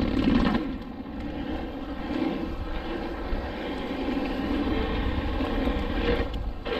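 Wind buffeting the camera microphone, with the rumble of a mountain bike's tyres rolling fast over concrete and pavement; loudest in the first half-second as the bike comes off the stairs.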